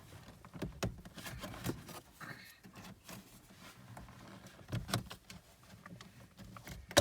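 Plastic dashboard trim panels being pried loose with a plastic trim tool: scattered clicks and knocks of the panels and their retaining clips, with one sharp knock near the end.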